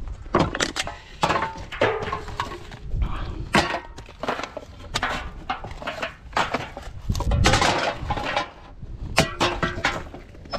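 Empty aluminium drink cans clattering as they are pulled out of a plastic wheelie bin and tossed into a steel drum of scrap cans, with rubbish being rummaged through. The knocks come irregularly, and two of the hits ring briefly.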